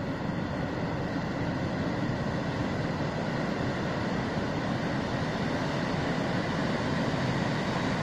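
Steady noise of heavy surf and a surge of white water rushing into the shore, growing slightly louder toward the end.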